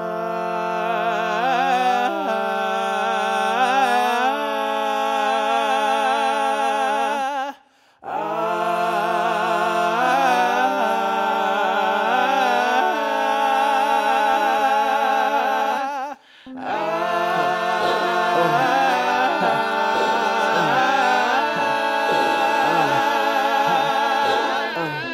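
A cappella vocal harmony with no words: several male voice parts layered into chords, sung with vibrato. It comes in three long held phrases of about eight seconds each, with short breaks between them.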